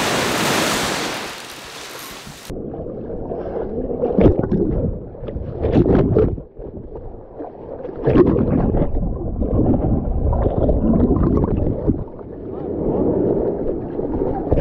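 Surf breaking with wind on the microphone. About two seconds in, it cuts to a muffled, low sound of water churning and sloshing, heard through a camera dipped in the surf, with several sharp splashes.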